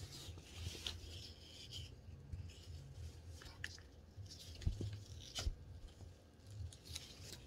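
Faint handling noise as cross-stitch kit materials are moved about: light rustling with scattered small taps and clicks, over a low hum.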